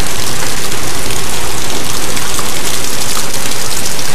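Heavy rain falling, a loud steady hiss close on the microphone.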